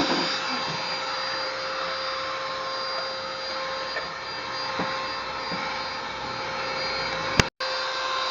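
Handheld car vacuum cleaner running steadily with a whine, vacuuming the car's interior and picking up small bits of dirt. Near the end there is a sharp click and a momentary break before the motor sound carries on.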